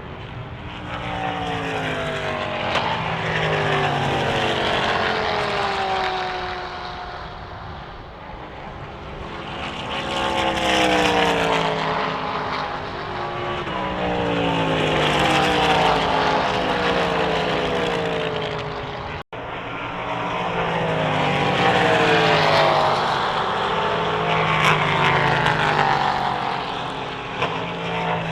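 Endurance race cars passing in quick succession at speed, their overlapping engine notes swelling and falling in pitch as each one goes by. The sound drops out for an instant about two-thirds of the way through.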